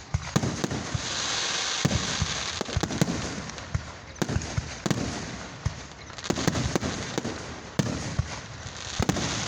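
Aerial fireworks bursting: a rapid string of sharp bangs, with two longer stretches of dense crackle.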